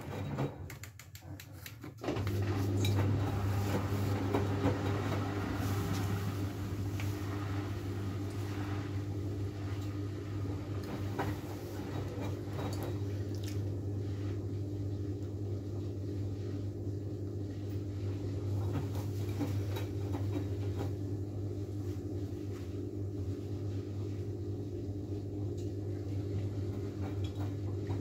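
Miele W433S washing machine's drain pump switching on about two seconds in and running with a steady hum, pumping out the water after the final rinse.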